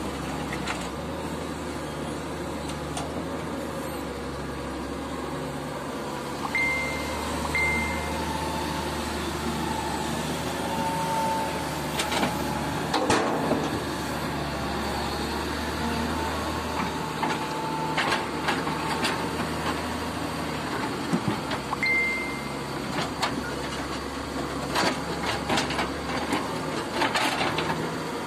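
Hitachi EX125WD wheeled excavator's diesel engine running steadily as it works a rock pile, with scattered knocks and clunks of rock and steel now and then. A few short high beeps sound over it.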